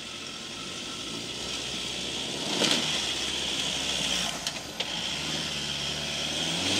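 Ford Ranger 2.2 TDCi four-cylinder turbodiesel pickup driving, its engine and tyre noise growing gradually louder, with a brief louder rush about two and a half seconds in and a couple of short clicks a little later.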